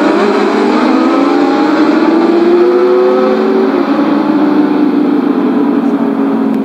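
A pack of racing sport motorcycles accelerating hard away from the start, many engines revving up together through the gears, growing fainter near the end as the bikes pull away.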